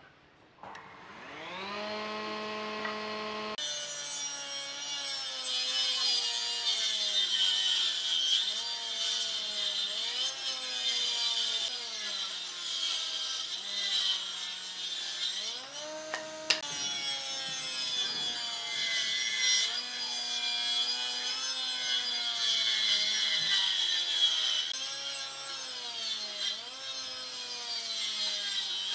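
An old combination woodworking machine's saw is switched on and spins up with a rising whine, then rips a long board into thin strips. Under the steady cutting hiss, the motor's pitch sags under the load of each push and recovers between pushes.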